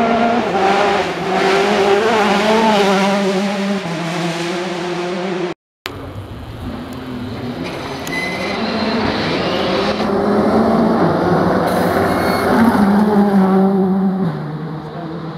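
R5 rally car engines, turbocharged four-cylinders, revving hard as the cars race past on cobbles, the pitch rising and falling. One car goes by, then after a short break about six seconds in a second car builds up and passes.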